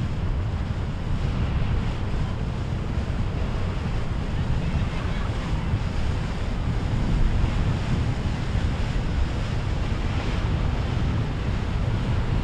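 Wind buffeting the microphone over a steady wash of waves and surf at an ocean inlet, with no clear engine note.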